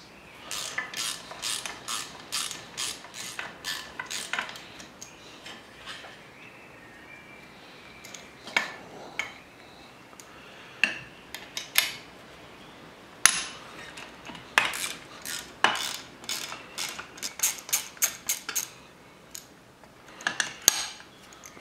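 Ratchet wrench with a 10 mm socket clicking as it loosens the bolts holding an outboard's lower unit. Quick runs of sharp clicks in the first few seconds, a few scattered clicks in the middle, then more runs near the end.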